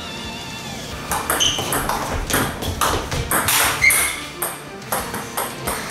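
A table tennis rally: the ball clicking back and forth with a short high ping on each contact, bat hits alternating with bounces on the table several times a second. Background music ends about a second in, before the clicks begin.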